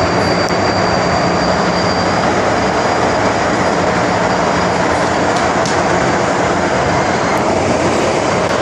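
Older-stock MTR Island Line electric train running, a steady, loud rush of wheels and traction motors with a constant low hum.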